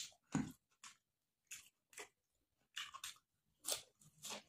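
Close-miked eating by hand: a string of short, separate chewing and mouth sounds, about eight in all, as a mouthful of rice, pork and fresh coriander is chewed; the loudest comes near the start.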